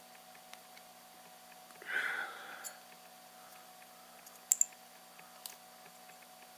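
Hand cutters snipping the metal connecting strip off lithium-ion laptop battery cells: light clicks and a rustle of handling, then two sharp snaps close together about four and a half seconds in, over a faint steady hum.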